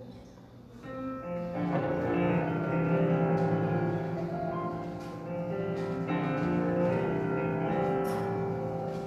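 Keyboard playing the slow introduction to a worship song, entering about a second in with sustained chords.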